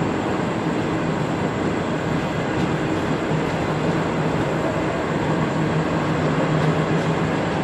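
Passenger coaches rolling past close by at speed: a steady rumble of wheels on rail with a low hum underneath.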